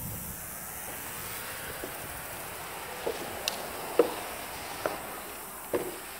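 Footsteps on a gritty floor, about one step a second, starting about halfway in, over a steady hiss.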